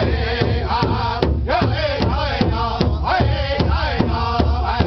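A powwow drum group singing in chorus while striking a large shared powwow drum together with a steady beat of about three strokes a second.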